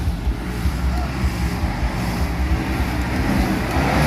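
Off-road 4x4 vehicle's engine running with a deep rumble, its revs climbing in the last second as it pulls harder.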